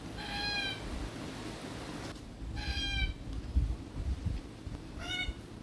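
Red-tailed black cockatoo (northern subspecies, Calyptorhynchus banksii banksii) giving three short, harsh calls about two and a half seconds apart. Low thumps sound between the calls.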